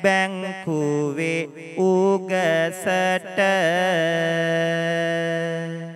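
A Buddhist monk's solo voice chanting Sinhala kavi verse in short melodic phrases, then holding one long note that slowly fades away near the end.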